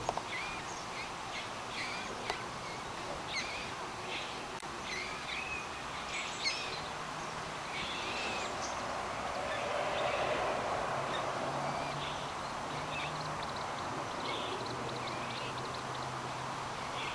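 Moorhen chicks peeping: short high calls, some bending in pitch, about once a second, thinning out and fainter in the second half. Under them a steady rushing noise that swells about halfway through, and a low hum.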